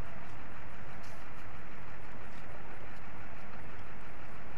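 Steady rumble and hiss of a tow vehicle's engine idling as it backs a boat trailer down a launch ramp.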